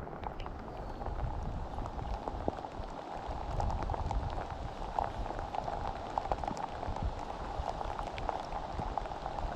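Rain falling steadily, with many small drop ticks scattered through it and a low rumble underneath.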